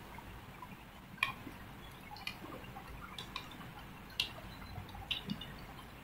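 Plastic 3x3 Rubik's cube being turned by hand: faint, irregular clicks as its layers are twisted and snap into line, about eight in all.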